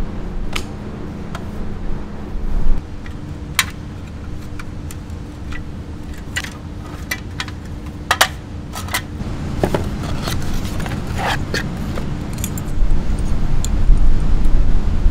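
Light clacks and metallic clinks of camping gear being handled: a folding slatted table set up and a small gas stove's steel pot supports unfolded. Under the scattered clicks runs a steady low rumble, with wind buffeting the microphone more strongly near the end.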